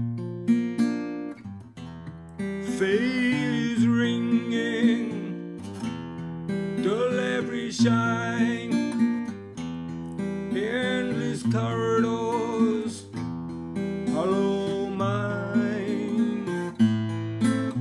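Acoustic guitar playing a dark, repeating riff, with a man singing four drawn-out phrases over it.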